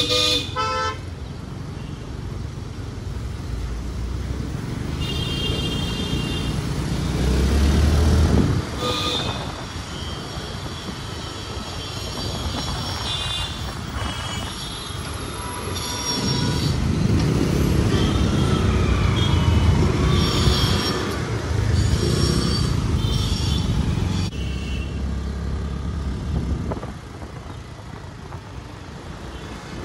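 Busy city road traffic from a moving vehicle: engine and tyre rumble that swells and fades as traffic passes, with several short horn honks and a high squeal or two.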